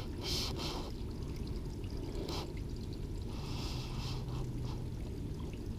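River water running and trickling steadily, with a few short, brighter noises in between.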